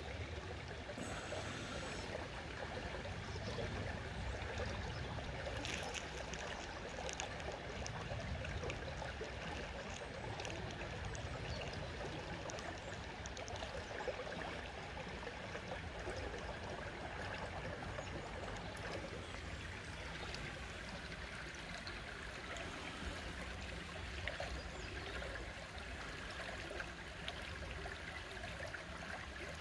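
Shallow stream water running steadily over stones, with a few faint ticks now and then.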